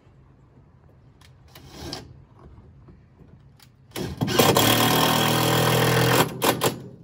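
Cordless drill running into a wooden strip overhead: a short burst about a second and a half in, then a longer, loud run of about two seconds starting about four seconds in, ending in two brief bursts.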